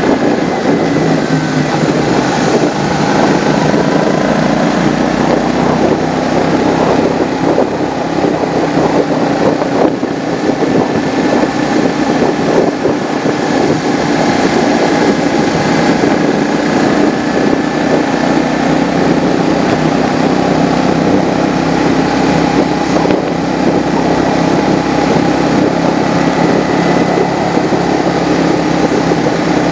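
Motorcycle engine running steadily at cruising speed, heard from on board the bike, with wind rushing over the microphone.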